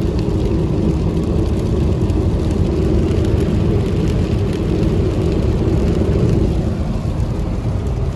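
Steady engine and road noise inside a Suzuki S-Presso's cabin while cruising at expressway speed. A hum in it eases about six and a half seconds in.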